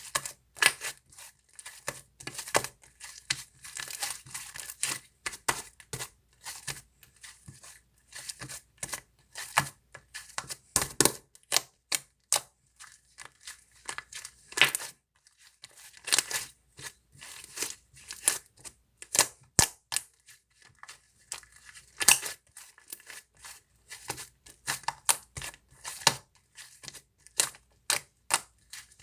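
Cream slime being squeezed and worked by hand, giving irregular sharp pops and crackles of trapped air bubbles, several a second with brief pauses.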